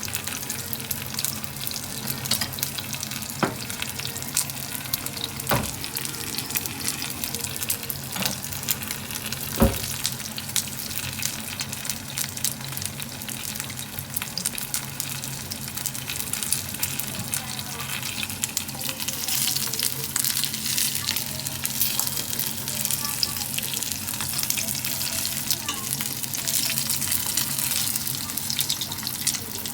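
Chicken thighs deep-frying in hot oil: a dense crackling sizzle that grows busier in the second half, over a steady low hum. Three sharp knocks come in the first ten seconds.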